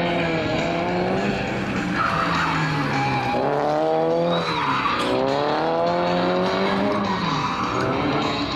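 Toyota 86 N1 race car's 2.0-litre flat-four engine revving up and down repeatedly as the car drifts, with the tyres squealing in spells.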